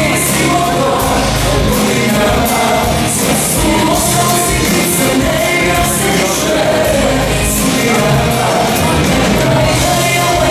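Pop song played loud: a woman singing lead over drums, bass and keyboards, with a steady beat.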